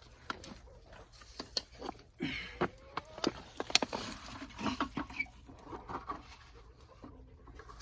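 Hands digging through soil in a potato grow pot, with irregular knocks and rustles as potatoes and soil are handled and dropped into a tote.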